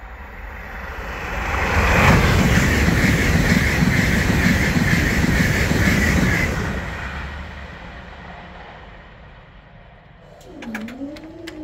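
High-speed passenger train passing at speed: the rush of wheels on rail builds over about two seconds, stays loud for about four seconds with a steady high whine on top, then fades away. Near the end a few sharp clicks and a low tone that dips and then rises start up.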